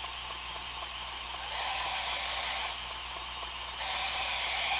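Belt grinder running with a fine polishing belt over a small contact wheel, and a knife edge pressed against the belt twice, each pass a grinding hiss of about a second, polishing the edge to a mirror finish.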